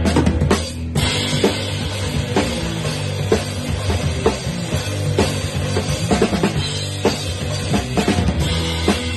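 Rock band playing live: electric guitars and bass holding chords while the drum kit comes in with a burst of hits, pauses briefly just under a second in, then keeps a steady beat with a strong hit about once a second and lighter hits between.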